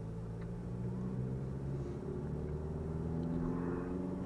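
2001 Toyota Camry's 2.2-litre four-cylinder engine and road noise heard from inside the cabin, the engine note climbing gently as the car pulls away.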